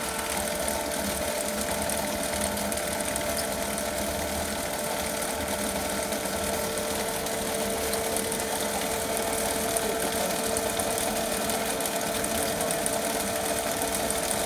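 Dazzini TCI260VH chain saw machine running steadily, its cutting chain driving through packed sand and earth, with a steady mechanical whine.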